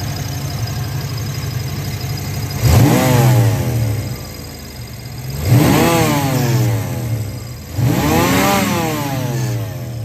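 1995 Ford Mustang GT's 5.0-litre V8 idling and revved by hand at the throttle three times, about 3, 5.5 and 8 seconds in. Each rev rises, then falls back to idle. The engine has a misfire that the owner has not yet traced.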